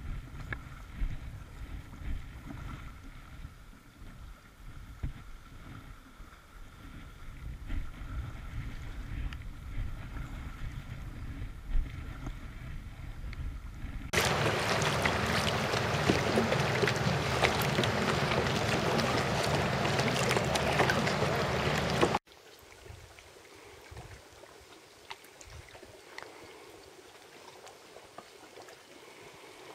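Kayak being paddled: paddle blades splashing and water moving past the hull, with wind rumbling on the microphone. Midway a loud, steady rushing noise takes over for about eight seconds and cuts off abruptly, leaving only faint water sounds.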